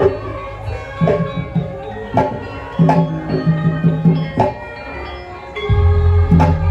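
Percussion music accompanying a pencak silat seni routine: regular drum strokes and struck, ringing metal tones, with a deep sustained low tone coming in near the end.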